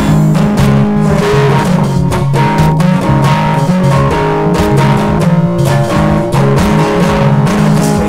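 Acoustic guitar strummed in a steady rhythm, playing chords of a song.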